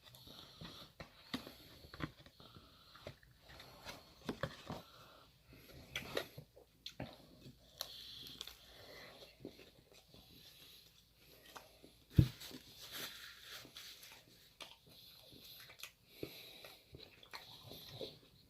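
Close-miked eating sounds: soft chewing, biting and small crackles of food and packaging, with one sharp knock about twelve seconds in.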